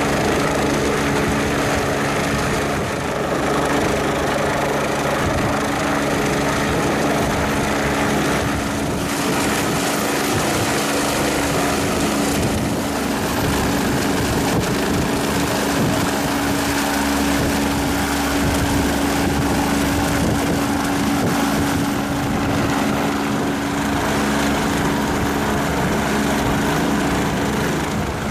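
Fire brigade helicopter flying low, its rotor and engine running with a loud, steady drone and a constant hum.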